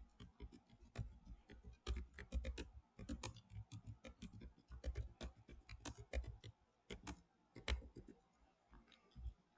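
Irregular run of light clicks, several a second, of the kind made at a computer desk; they thin out near the end.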